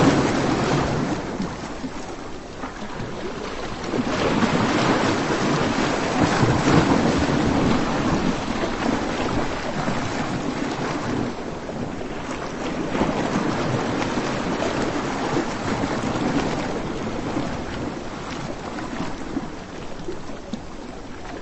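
Surf on a sandy beach: a steady rush of breaking waves that swells and eases every few seconds.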